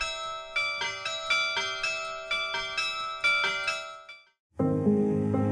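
Bells playing a quick melody of struck notes that ring on under one another, cutting off about four seconds in. Soft instrumental music starts near the end.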